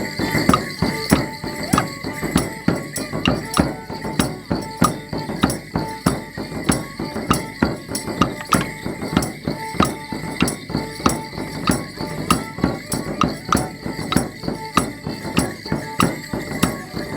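Border Morris dancers' rhythmic strikes, clacking with jingling, about three to four a second, over faint accompanying music.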